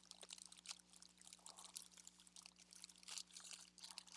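Faint clicking and rustling of small craft embellishments being picked through and sorted by hand, many quick light ticks.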